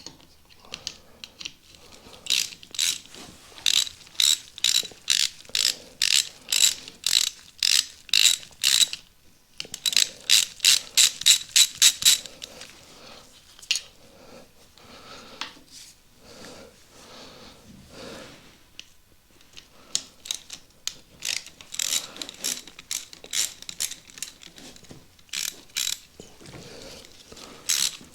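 Hand socket ratchet being worked back and forth on bolts, clicking in runs of sharp evenly spaced clicks, faster in places, with short pauses between runs.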